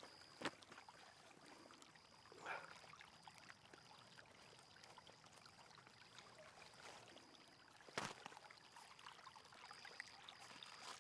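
Near silence: faint outdoor ambience with a faint, evenly pulsing high tone and a couple of soft clicks, one about half a second in and one near eight seconds.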